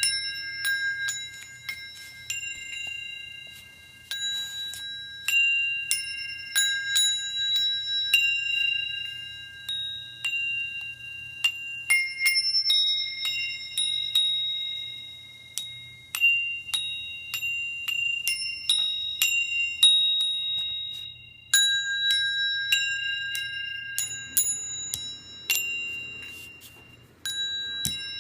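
A set of steel hole saws struck one after another so that each rings like a bell, playing a tune. Each note starts with a sharp click and rings on, fading, at several different pitches, about one to two strikes a second.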